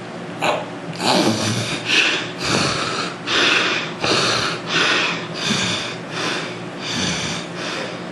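A man snoring, a quick run of noisy snorting breaths, one about every 0.7 s, starting about a second in. It is the kind of snoring the uploader ties to nasal obstruction from weight gain.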